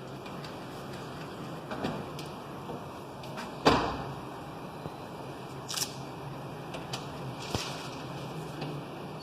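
A few sharp knocks and clicks over a steady low hum. The loudest knock, a little over a third of the way in, rings on briefly.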